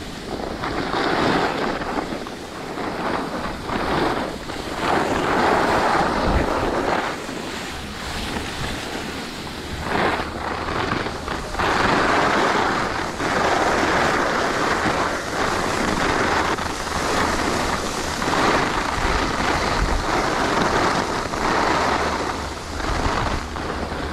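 Skis sliding and scraping over packed snow through a series of turns, with wind rushing over the microphone at speed. The hiss swells and fades with each turn, every few seconds.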